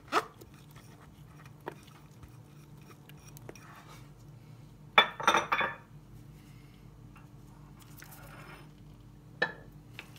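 Kitchenware being handled: a sharp knock at the start, a short clatter of several knocks about five seconds in, and another knock near the end, over a low steady hum.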